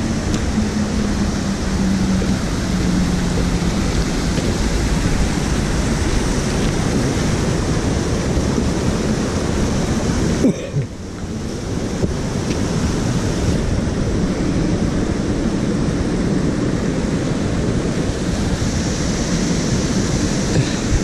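Steady rushing noise of wind buffeting the microphone over a small stream running through rocks, with a click and a brief drop in level about halfway through.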